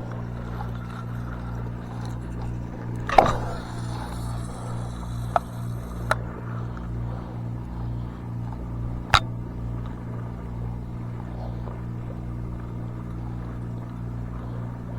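A steady low engine-like hum throughout. About three seconds in, a sharp click is followed by a couple of seconds of high hiss, and single lighter clicks come a few seconds later.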